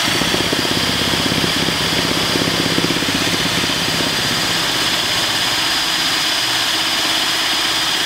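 Electric drill in drive mode running at a steady high speed, spinning a DIY ceiling-fan-motor alternator: a constant high motor whine over a steady whir.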